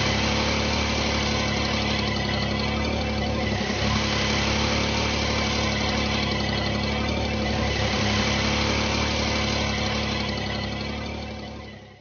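A vehicle engine idling steadily, fading out near the end.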